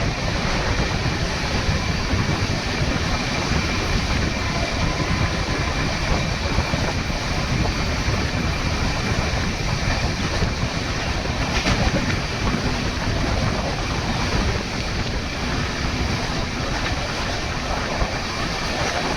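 The 12840 Howrah Mail passenger train running, heard from on board: a steady rolling rumble of the wheels on the track, with a brief click about twelve seconds in.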